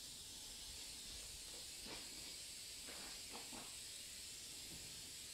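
Aerosol can of spray adhesive hissing in one steady, continuous spray as it coats a foam wing, with a few faint soft knocks about two to three and a half seconds in.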